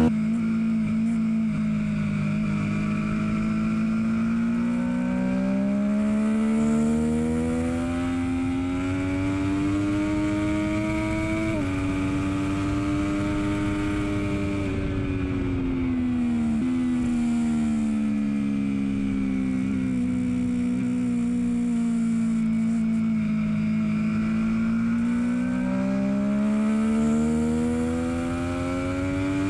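Triumph Daytona 675R's inline three-cylinder engine heard on board at speed, its pitch climbing and falling in long sweeps as the bike accelerates and slows through the corners, with a couple of abrupt pitch steps at gear changes. Steady rushing noise underneath.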